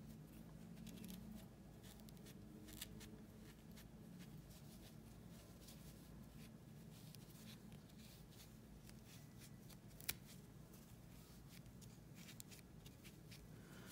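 Near silence: faint rustling and light clicks of hands and a metal forceps-like tool packing fluffy stuffing into a crocheted piece, with one sharper click about ten seconds in.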